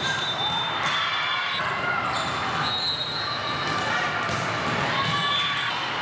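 Volleyball rally in a large gym: several sharp ball hits, short high squeaks of sneakers on the hardwood court, and players' and spectators' voices echoing in the hall.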